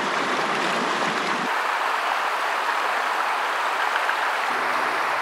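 Shallow creek rushing over stones, a steady rush of running water; its lower rumble drops away about a second and a half in and comes back near the end.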